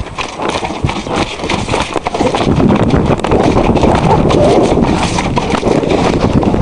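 Coloured cob cantering on grass, its hoofbeats thudding in quick succession. Wind rushing over the microphone gets loud about two seconds in.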